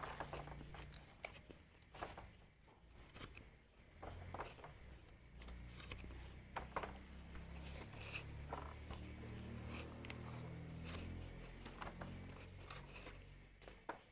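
Corn cobs and small pumpkins being lifted out of a woven bamboo basket and laid on a bamboo tray: scattered faint rustles of corn husks and soft knocks of the produce, over a faint low hum.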